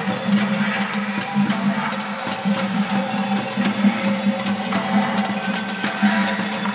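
Percussion played on kitchen cookware (pots, pans and kettles mounted on wearable body braces), struck in a quick, dense rhythm over a steady low tone.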